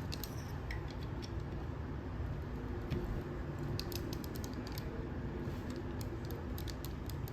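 Plastic Transformers action figures being handled and set down, giving light, irregular clicks and taps.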